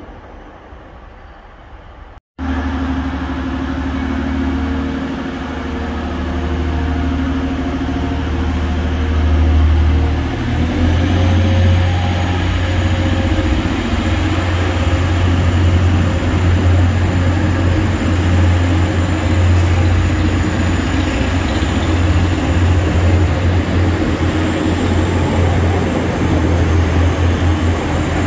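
A TransPennine Express train's diesel engines running at the platform, with a steady low drone that shifts to a heavier, louder note about ten seconds in. A thin high whine joins it from then on. The first couple of seconds hold only quieter station background before the engine sound cuts in.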